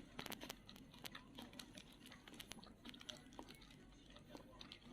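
Faint eating sounds: a person chewing food, with scattered small mouth clicks and crunches.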